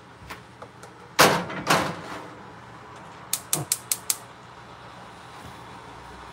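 Metal cookware clattering on a gas stove's grate as a wok is taken off and a flat iron tawa set on the burner: two loud clanks about a second in, then a quick run of five sharp clicks near the middle.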